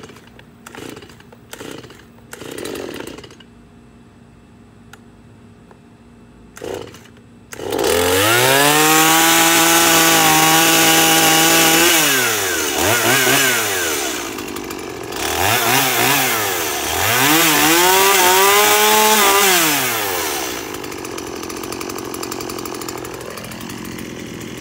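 Two-stroke STIHL chainsaw being pull-started: several pulls of the starter cord in the first few seconds, then the engine catches about seven and a half seconds in. It revs high and steady for a few seconds, is blipped up and down several times, and settles to a lower idle near the end.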